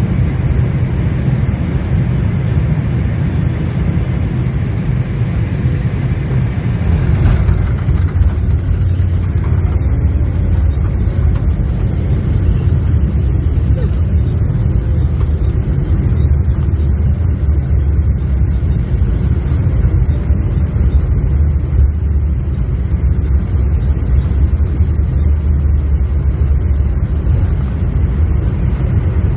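Steady low rumble inside the cabin of a Boeing 747-8 moving on the ground after landing: its GEnx engines and the airframe rolling. About seven seconds in, the higher hiss drops away and the rumble carries on.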